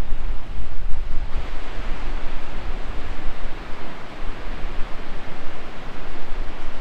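Steady rush of flowing water, with wind buffeting the microphone; the hiss grows fuller about a second in.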